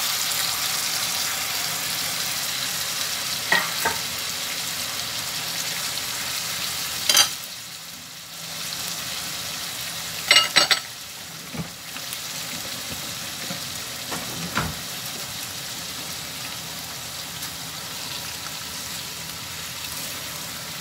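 Chicken strips frying with sliced peppers and onion in a hot pan, a steady sizzle that eases somewhat about eight seconds in. A few sharp clinks and knocks of the glass bowl and spatula against the pan come through it, the loudest cluster about halfway.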